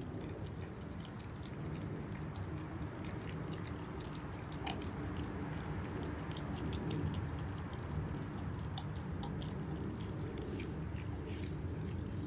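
German Shepherd puppy chewing and biting on raw chicken, with many short, irregular clicks of teeth on meat over a steady low background hum.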